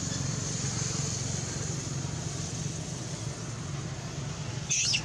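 Steady outdoor background noise, a low hum under a high hiss. Near the end comes a short cluster of high-pitched squeaks.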